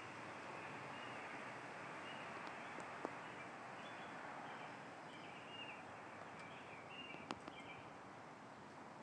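Faint outdoor woodland ambience: a steady background hiss with small birds chirping softly and repeatedly, and two sharp clicks, one about three seconds in and one about seven seconds in.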